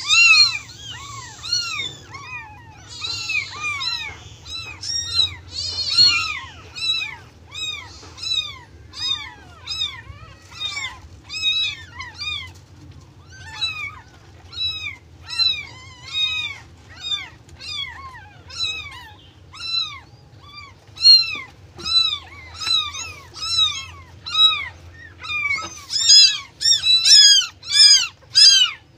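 Newborn kitten mewing over and over in short, high-pitched cries, about two a second, while it is fed milk from a syringe. The cries grow louder near the end.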